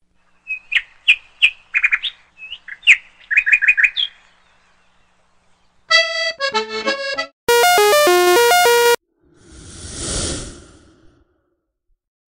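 Bird chirps for about the first four seconds, then a short run of musical notes, a held chord and a whoosh that swells and fades. The background between them is dead quiet, as with sound effects laid in during editing.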